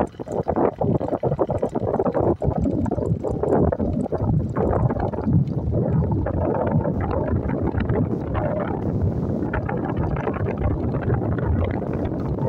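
Wind buffeting the microphone of a moving motorcycle, mixed with the motorcycle's engine running.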